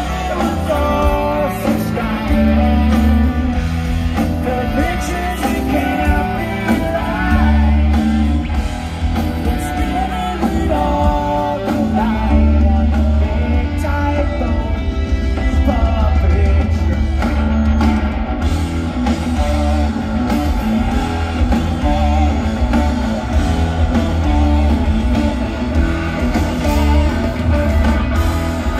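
Live rock band playing: electric guitars over bass, drum kit and percussion, recorded from the audience, with heavy bass throughout.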